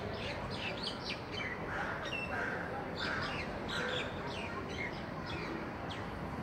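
Small songbirds chirping: a busy run of short, quick high chirps, many overlapping, over a steady low background hum.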